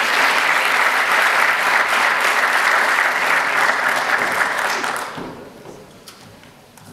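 Audience applauding in an auditorium, a dense even clapping that dies away quickly about five seconds in.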